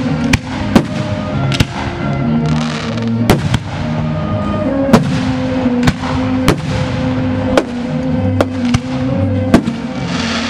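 Aerial fireworks shells bursting in a fireworks show, about a dozen sharp bangs spaced half a second to a second apart. Music with long held notes plays underneath.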